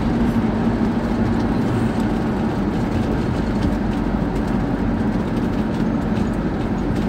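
Old camper van driving at a steady speed, its engine and road noise heard from inside the cab as an even drone.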